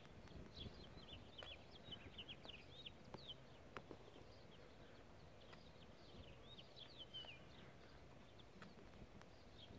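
Faint small-bird chirping in quick runs of short high notes, with a few sharp taps scattered among them.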